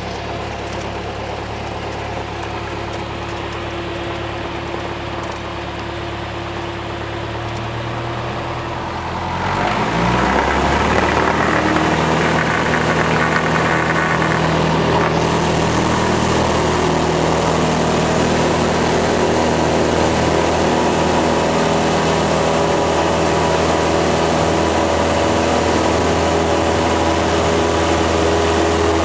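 Cessna 172's four-cylinder Lycoming engine and propeller, heard from inside the cabin, running at low power, then opened up to full throttle for the takeoff roll about nine or ten seconds in: the sound jumps louder, the engine note rises, and it then holds steady.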